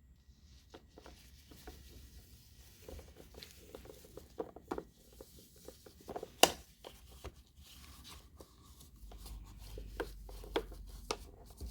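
Handling of a coffee maker's plastic parts and wrapping: scattered small clicks, taps and plastic rustling, with one sharper click about six seconds in.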